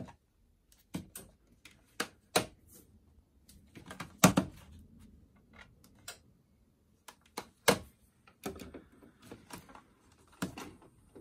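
Irregular clicks and a few heavier thunks as a Pioneer stacked hi-fi system is worked with its remote control. The two loudest thunks come about four and about eight seconds in.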